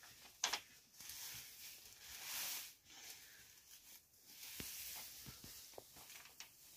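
Faint rustling of dry thatching straw being gathered and handled, swelling twice, with a few light clicks.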